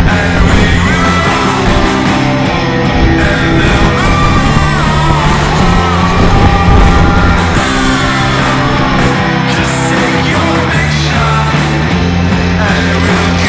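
Loud rock music with a sung vocal, playing as a soundtrack.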